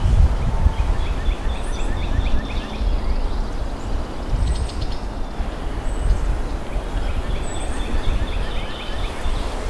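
Outdoor ambience of wind rumbling on the microphone, with birds chirping in two runs of quick, short repeated notes.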